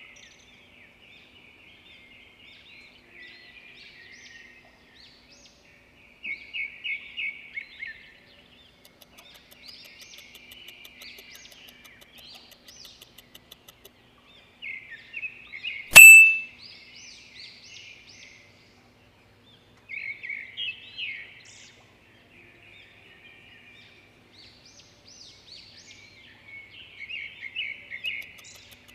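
Birds chirping and trilling in repeated short phrases, with one sharp, loud ding about sixteen seconds in.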